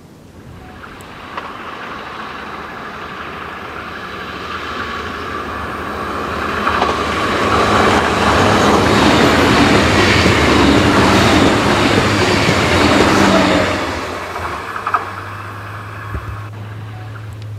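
DB class 425 electric multiple unit passing: a rising rush of wheels on rail with a steady high whine on top, loudest in the middle. It drops away sharply about fourteen seconds in, leaving a steady low hum.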